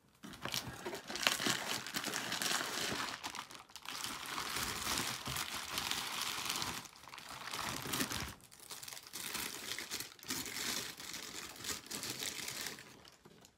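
Bubble-wrap packaging crinkling and rustling as it is handled and pulled off a camera lens, stopping briefly several times.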